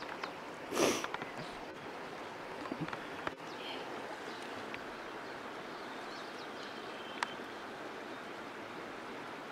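Steady rush of a small stream's flowing water, with a brief louder noise about a second in.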